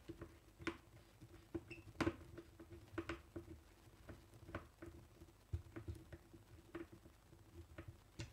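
Faint, irregular clicks and scratches of a small screwdriver working the terminal screws of an electrical contactor as wires are fastened in.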